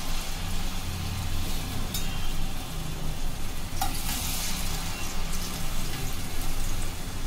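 Chakli dough spirals deep-frying in hot oil in a kadhai: a steady, bubbling sizzle. About four seconds in, a second chakli is slid into the oil from a slotted spoon and the sizzle grows briefly louder, with a couple of light knocks.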